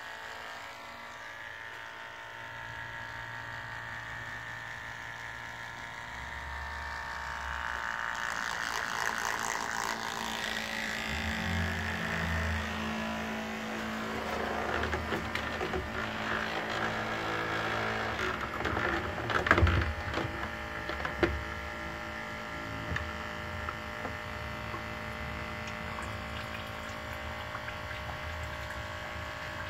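Small electric oil-extraction pump running steadily as it sucks engine oil up through the dipstick tube. From about eight seconds in, the oil spatters and gurgles through the hose into a plastic bottle, and a few sharp knocks come near the middle.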